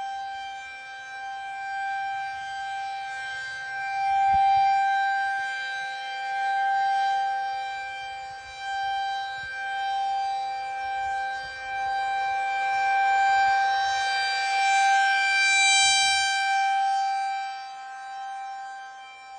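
Federal Signal 2001 rotating tornado siren sounding a steady tone at full pitch. Its level swells and fades every few seconds as the rotating head sweeps toward and away.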